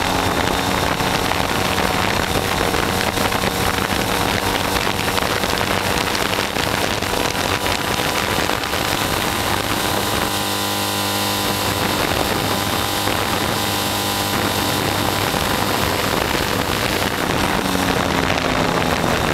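Triumph Bonneville parallel-twin engine running at road speed under steady wind rush on the microphone. The wind noise eases a little past halfway, and near the end the engine note climbs as the bike speeds up.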